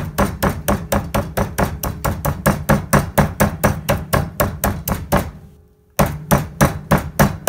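Metal meat mallet pounding a chicken breast flat through plastic wrap on a cutting board: rapid, even strikes about five a second. The strikes pause briefly about five seconds in, then resume.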